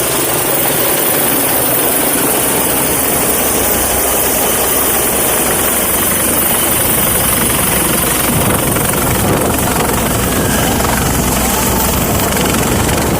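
Helicopter running close by during a landing: loud, steady rotor and engine noise, growing heavier in the low end about halfway through.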